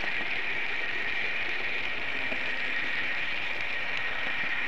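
Märklin model train running along the layout's track, heard from a camera riding on it: a steady hiss-like running noise with a high even whine and occasional faint clicks.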